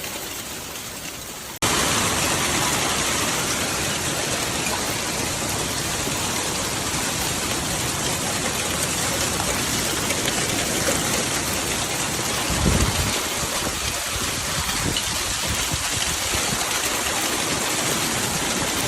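A hailstorm: dense hail and rain pelting down in a steady, loud hiss that starts suddenly after a quieter moment, with a low thud about two-thirds of the way in.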